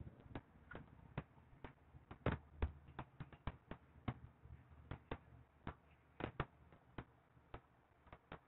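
Irregular, sharp clicks and taps at a computer, roughly three a second, the loudest a little past two seconds in.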